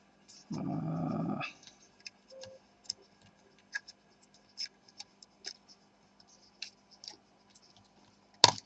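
Light scattered clicks and ticks of small parts being handled as a laptop's cooling fans are worked loose, with a sharper click near the end. About half a second in, a louder low pitched sound of unclear source lasts about a second.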